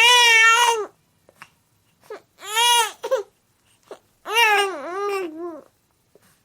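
A baby crying in three separate wails with short catches of breath between them; the third wail is the longest and wobbles up and down in pitch.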